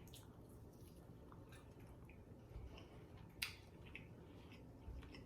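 Faint chewing and mouth sounds from someone eating, with soft scattered ticks and one sharper click a little over three seconds in.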